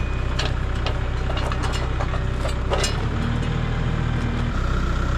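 Kubota MX5400 tractor's diesel engine idling steadily, with several sharp metal clinks and knocks in the first few seconds as an implement is hooked onto its three-point hitch. The engine note changes for about a second and a half past the middle.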